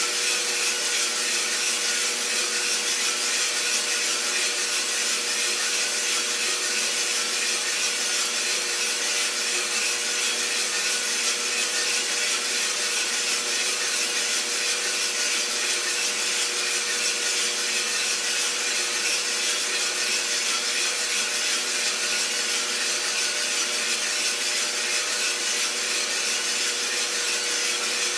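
Iroster 600 coffee roaster running through its roast: steady fan and motor noise with a constant hum, and beans rustling as they tumble in the drum. There are no cracks yet.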